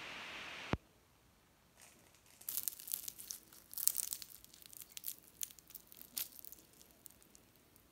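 Crisp fried chicken briouat, a thin-pastry triangle, being torn open by hand: a dense run of dry crackles from the pastry shell from about two and a half seconds in to about six seconds. Before that, a steady hiss cuts off with a click within the first second.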